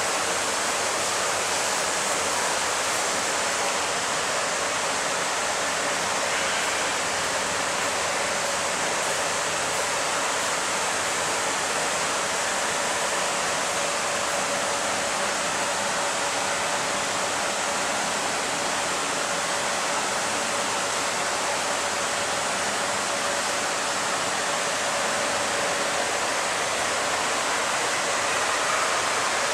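Steady, even rushing noise like running water, with a faint steady tone in the middle.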